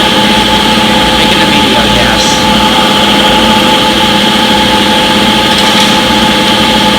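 Front-load washing machine spinning at a steady high speed: an even mechanical hum with a steady whine on top, holding constant throughout.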